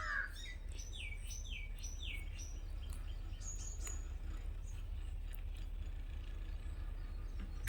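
Small birds chirping in the background, a quick run of short falling notes in the first few seconds and a few higher notes a little later, over a steady low hum.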